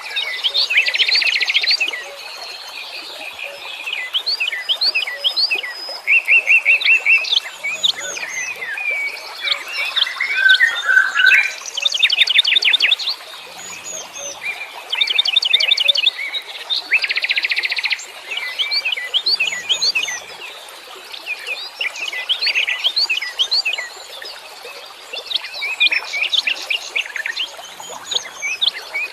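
Several wild songbirds chirping and singing at once, with fast trills and short rising and falling whistles overlapping throughout.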